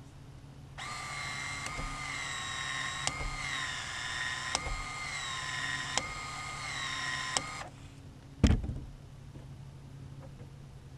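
A small electric motor whines for about seven seconds, its pitch stepping down several times with a click at each step, then stops suddenly; a single heavy thump follows.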